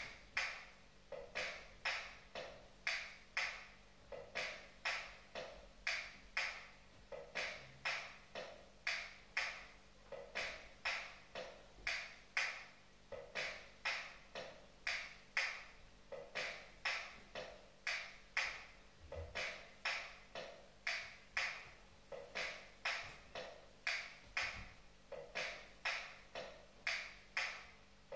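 Bombo legüero drum track playing a slow Argentine zamba rhythm at about 60 beats a minute: sharp, dry strikes about twice a second in a repeating pattern, thin and with little bass.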